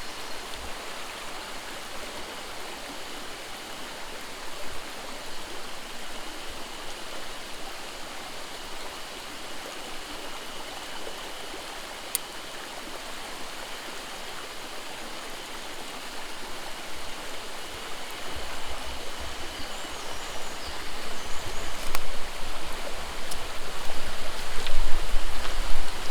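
Mountain stream water running steadily. A low rumble comes in and the sound grows louder over the last several seconds.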